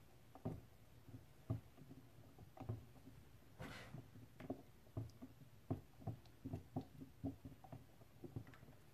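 Silicone spatula stirring lumps of mango and shea butter into oil in a plastic tub to melt them: soft, irregular knocks of the spatula against the tub, with a brief swish a little under four seconds in.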